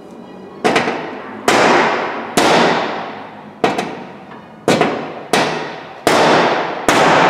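Eight hard hammer blows on the Peugeot 208's sheet-metal front-fender mounting bracket, about one every 0.8 s, each ringing out before the next. The blows are knocking the bracket outward to correct an inward sag in the middle of the fender's arc.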